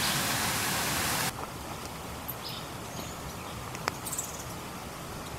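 Steady rushing hiss of river water, which cuts off abruptly about a second in. It gives way to quieter woodland background with a few faint high chirps and one sharp click.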